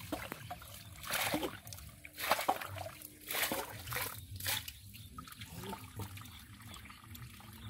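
Water splashing and trickling as it is tipped from a steel bowl into a shallow muddy ditch, in several pours about a second apart.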